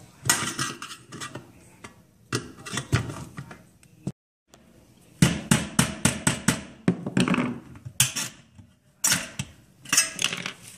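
Screwdriver and pliers working a knockout out of the range's sheet-metal cord bracket: irregular clusters of sharp metallic clicks, taps and scrapes on the thin steel plate.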